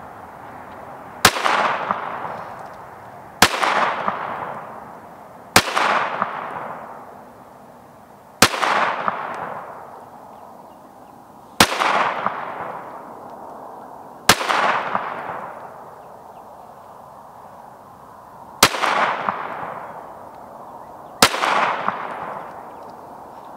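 Glock 34 Gen 5 MOS 9mm pistol firing eight slow, aimed single shots, spaced about two to four seconds apart. Each sharp crack is followed by a long echo that dies away over a second or two.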